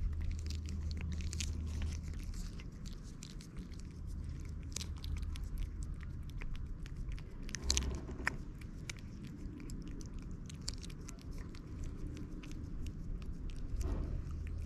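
A cat licking and lapping a paste treat from a squeeze tube held close to the microphone: quick, irregular wet smacking clicks of tongue and mouth.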